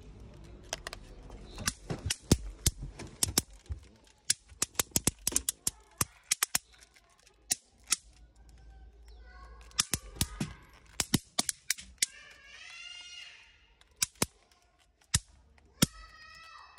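Electric mosquito racket zapping mosquitoes: a long run of sharp, loud snapping cracks at irregular intervals, often in quick clusters, each one an insect shorting across the racket's charged wire grid.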